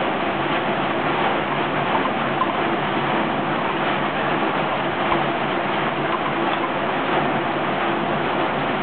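Kiverco 620 tracked trommel screen running: a steady engine hum under the continuous rattle and clatter of rubble tumbling in the rotating drum and falling from the conveyor.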